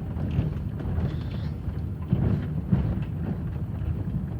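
Chevrolet Aveo (T250) front suspension knocking irregularly as the car rolls slowly over potholes, over a steady low rumble of the engine and tyres. The owner traces the knock to the new upper strut mount, which is taking load from a spring he thinks is too weak.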